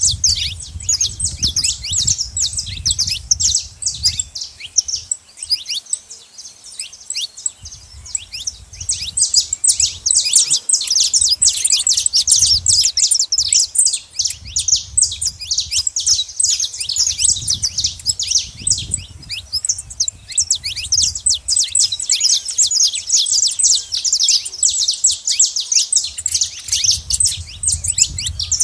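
Saffron finches chirping and singing in a dense, continuous chatter of rapid, overlapping high notes. A low rumble comes and goes underneath.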